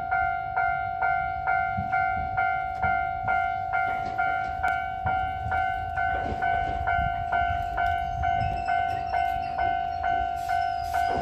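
Electronic level-crossing warning bell ringing steadily at about two strikes a second, each ding fading before the next. A low rumble runs beneath it from the approaching Iyotetsu 700 series electric train.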